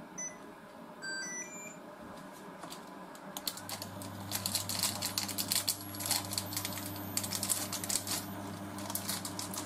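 Induction hob control panel beeping several times as it is switched on, then the hob starting to heat the empty saucepan with a steady low hum. Irregular clicking runs over the hum from about four seconds in.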